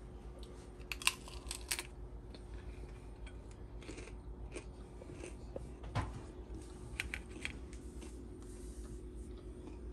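Crunching and chewing of a crisp deep-fried corn-tortilla taco being bitten into, with a cluster of sharp crunches about a second in and a few more around six and seven seconds.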